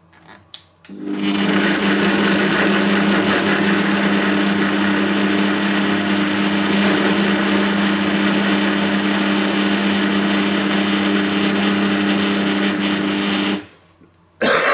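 Bosch MUM5 kitchen machine's blender attachment running steadily, puréeing strawberries and banana. A few clicks come first, the motor starts about a second in and cuts off shortly before the end.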